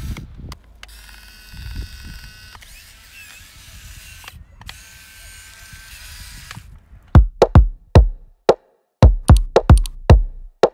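A small electric RC crawler's motor whines faintly over hiss as it works through mud. About seven seconds in, electronic music starts with a loud, punchy drum beat.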